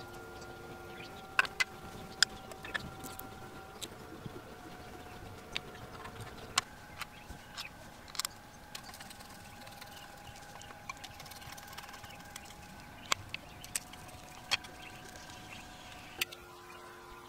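Irregular sharp clicks and taps of small metal and plastic parts being handled while an electric drill's motor is reassembled, the armature going into the plastic housing and the front cover being fitted. A faint steady hum runs underneath.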